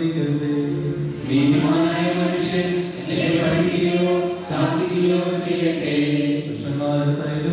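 Voices chanting the sung prayer of a church Vespers service: a slow chant of long held notes, moving to a new pitch every second or so.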